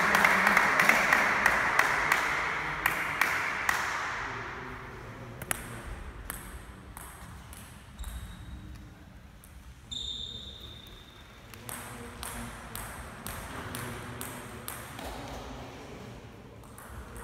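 Clapping that fades away over the first few seconds. Then a celluloid table tennis ball ticks now and then as it is bounced and served, with a couple of brief high squeaks around the middle.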